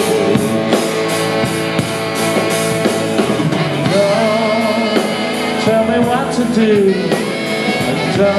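Live rock band playing: electric guitar, bass guitar and drum kit, with a saxophone melody over it between sung lines.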